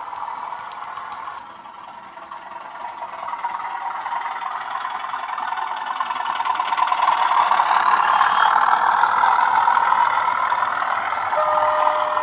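Bachmann OO gauge Class 37 model's factory-fitted Zimo DCC sound decoder playing the diesel engine sound through its speakers as the model runs round the layout, getting louder as it comes close. A steady tone joins near the end. The speaker now sits in a sealed enclosure and no longer rattles.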